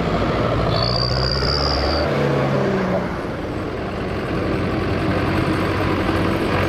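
Several diesel farm tractors driving past one after another, their engines running steadily. A thin high whistle sounds for about a second near the start.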